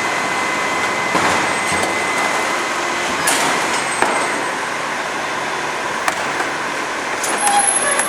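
HEIL Formula 4000 rear-loader garbage truck working its hydraulic packer: steady engine and hydraulic noise with a faint whine, broken by several sharp metallic knocks.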